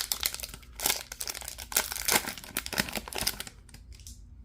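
Wrapper of an Upper Deck hockey card pack being torn open and crinkled by hand, a run of dense crackling bursts that dies down about three and a half seconds in.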